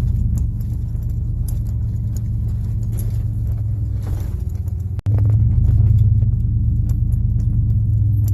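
A vehicle's engine and road rumble heard from inside the cab while driving: a steady low drone that breaks off briefly about five seconds in, then returns louder.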